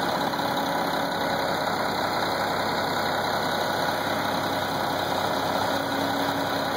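Silage dump truck's diesel engine idling steadily.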